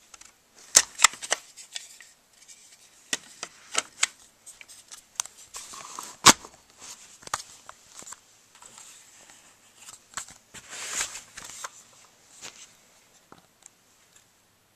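An airsoft MP5 replica being handled: scattered sharp plastic clicks and rattles of its parts, with rustling of hands and fabric, the loudest click about six seconds in and a spell of rustling around eleven seconds.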